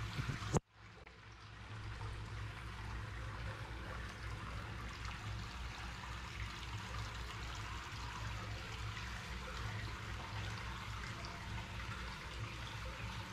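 Steady running water, an even pouring or trickling rush over a low rumble; it cuts out briefly about half a second in and fades back up.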